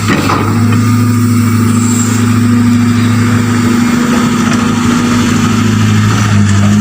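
Excavator's diesel engine running steadily at a constant pitch.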